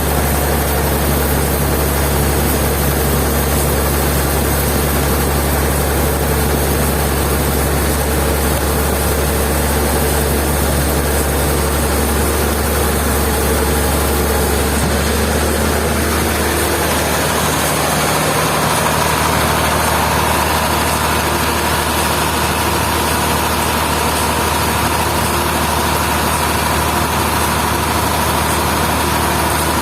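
A heavy engine running steadily. About halfway through its note changes and a steady higher whine joins in.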